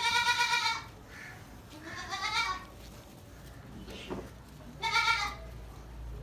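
Gulabi goat kids bleating: three loud calls, the second rising in pitch, with fainter calls between them.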